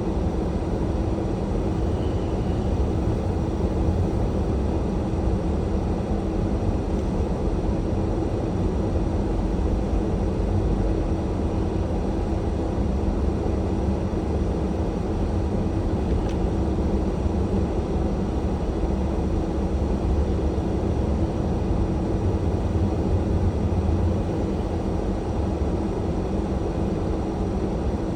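Car driving on a snow-covered road: a steady low rumble of engine and road noise with a constant hum.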